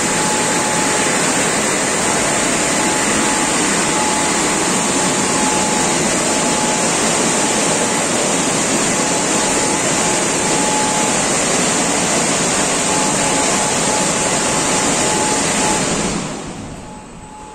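Drying blowers of a rollover car wash gantry running: a loud, steady rush of air with a thin constant whine. About 16 s in they shut off and fade to a low hum.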